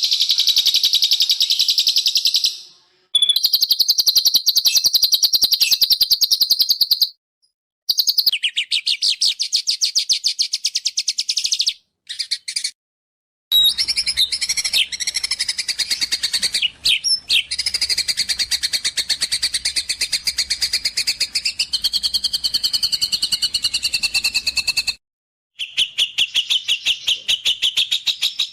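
Small songbirds singing very fast, dense trills and chirps of rapidly repeated high notes. The song comes in several separate stretches that cut off abruptly with short silent gaps, like spliced clips. Near the middle a drawn-out whistled note dips and rises.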